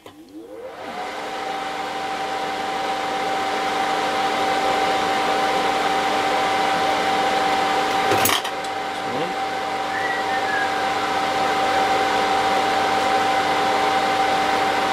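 A 426DLX bench fume extractor's fan switched on, spinning up over about a second into a steady whirring hum with a constant whine. A single click comes about eight seconds in.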